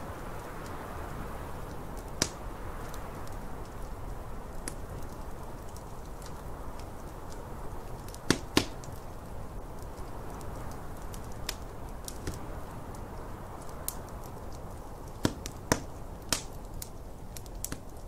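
Wood fire crackling in a fireplace, with sharp pops about two seconds in, a pair near the middle and three more near the end, over the steady rushing noise of a snowstorm wind.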